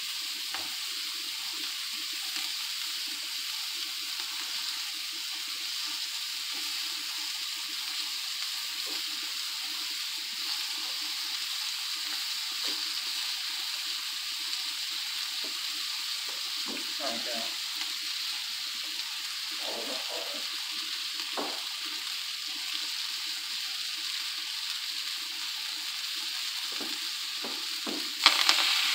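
Onions sizzling steadily in butter in a hot wok, with scattered small pops. Near the end asparagus is dropped in and the sizzle suddenly gets louder.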